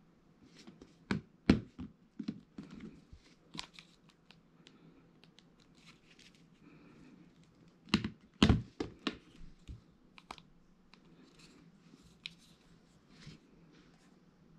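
Smartphones being handled and set down on a tabletop: a scatter of sharp clicks and knocks, loudest about a second and a half in and again around eight and a half seconds, with quieter taps in between.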